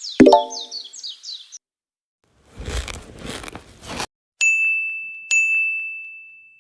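Birdsong chirping with a short pitched pluck near the start, then a brief rustling noise, then two bell-like dings a second apart, each ringing on one high note and fading slowly.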